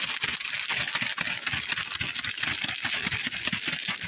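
A zip-lock plastic bag filled with potting soil, sand and palm seeds being shaken hard to mix the seeds into the soil. The plastic crinkles and rustles, and the soil mass shifts with rapid soft thumps at an even rhythm, about five a second.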